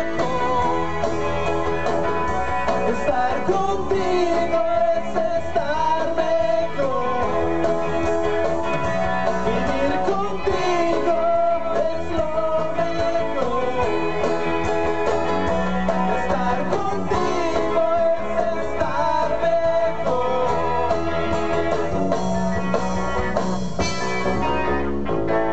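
Live rock band playing an instrumental passage: electric guitars, bass and drums, with a lead line of sliding, bending notes.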